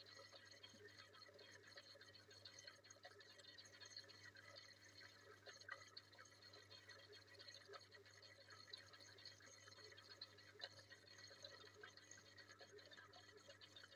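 Faint aquarium water trickling and dripping, with small crackles throughout over a low steady hum.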